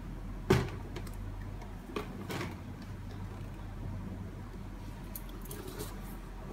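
Handling noise from a Nike Air More Uptempo sneaker being picked up and turned over by hand: a few brief rustles and knocks in the first couple of seconds, then only a low steady hum of room tone.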